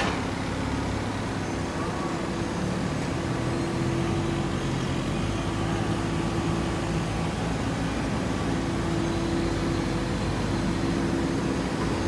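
Industrial machinery running steadily: a continuous mechanical hum with a few held low tones and no starts or stops.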